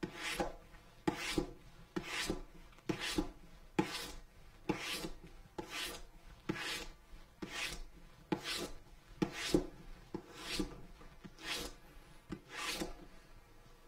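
Fine-grit sandpaper rubbed back and forth along the edge of a leather briefcase, smoothing and polishing the edge. Short scratchy strokes come about once a second.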